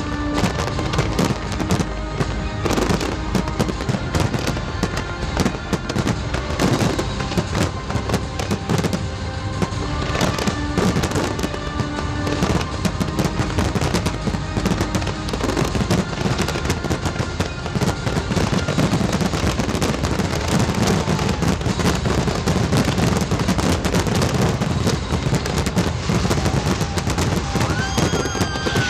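Aerial fireworks display: many shell bursts in quick succession, with music playing along.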